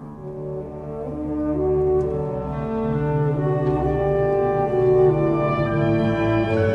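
Symphony orchestra in a piano concerto coming in with horns and brass holding long chords, swelling steadily louder over the first couple of seconds, with the grand piano playing along.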